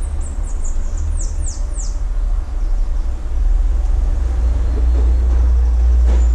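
A steady low rumble, with a bird giving a quick run of about six high, falling chirps in the first two seconds.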